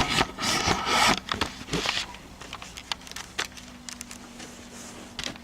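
Handling noise on a handheld camcorder being turned around: rustling and scraping with knocks and clicks for about the first two seconds, then only scattered faint clicks.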